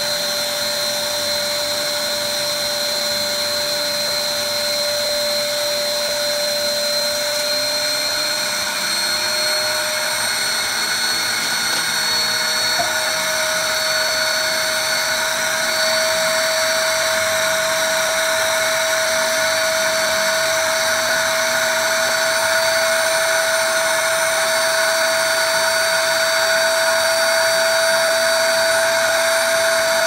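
Tacklife 800 W ash vacuum running steadily with a high motor whine and a rush of air as its hose nozzle sucks up wood-stove ash; the whine rises a little in pitch about halfway through.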